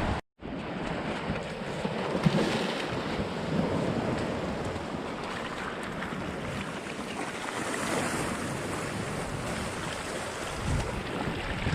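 Sea waves washing on a rocky shore with wind buffeting the microphone, a steady rushing noise after a brief dropout near the start.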